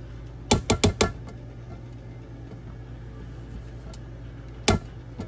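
KitchenAid stand mixer running, its motor giving a steady low hum while it mixes cheesecake batter. Four sharp clicks come quickly about half a second in, and one more near the end.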